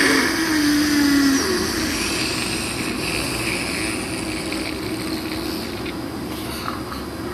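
Simulated agonal gasping: a groaning gasp in the first second and a half, falling slightly in pitch, then a steady noisy hiss. Agonal gasps are not normal breathing but a reaction of the body to cardiac arrest.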